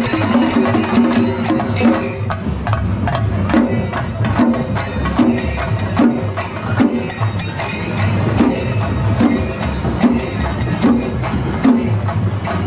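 A festival percussion troupe of drums and cymbals playing loudly, with dense clashing strokes over a steady repeating beat.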